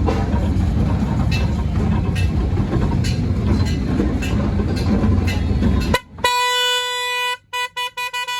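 A steady loud rumbling noise with faint regular ticks, which cuts off about six seconds in. A car horn then sounds on one steady pitch: a long honk of about a second followed by a quick run of short toots.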